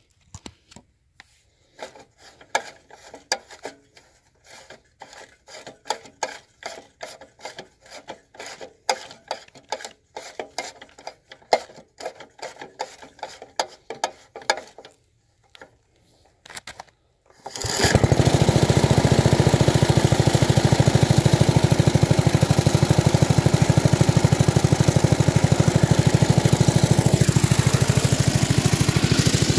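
Quick, irregular clicking and knocking from hands working at the engine of a Locke reel mower. About seventeen seconds in, the engine starts suddenly and runs steadily and loudly.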